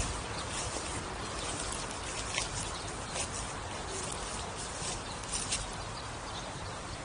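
Outdoor ambience: a steady hiss with small birds chirping in short, irregular high notes scattered through it.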